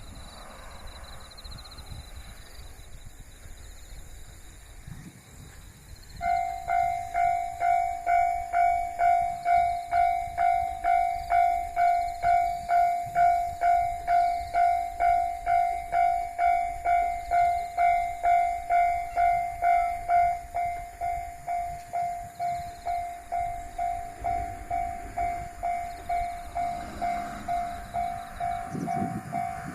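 Railway level-crossing warning bell starts ringing about six seconds in, a repeated ding about twice a second, signalling an approaching train. About two-thirds of the way through, one of its tones drops out and the ringing carries on a little quieter.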